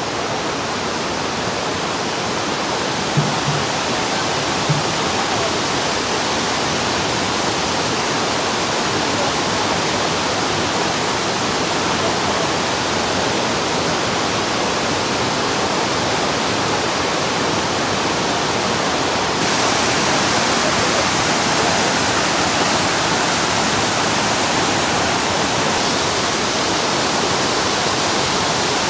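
Waterfall crashing steadily: a dense, even rush of falling water, slightly louder about two-thirds of the way in. Two brief low knocks come in the first few seconds.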